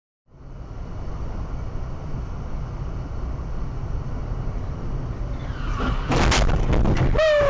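Steady low rumble of a car driving, as heard from a dash camera. About six seconds in comes a loud burst of sharp impacts, a car crash, followed by a short pitched sound that falls in pitch.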